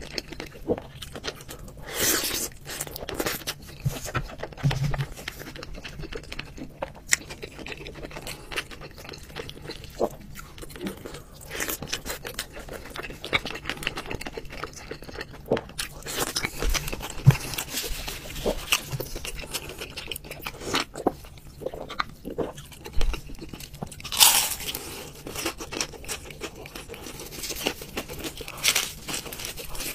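Close-miked eating: a person chewing and crunching mouthfuls of food, with irregular wet smacks and sharp clicks throughout.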